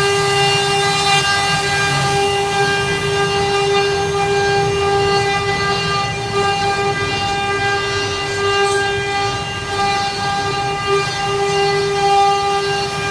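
CNC wood-carving router running, its spindle motor giving a steady high whine that holds one pitch throughout.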